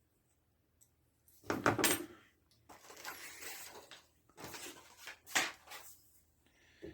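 Small metal parts being handled at a workbench: clinking and rustling in four or five short bursts, then a small click near the end.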